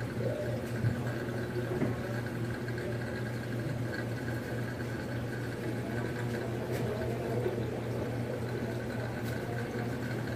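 Steady low hum with a faint wash of moving water, the running pumps and water flow of reef aquarium systems.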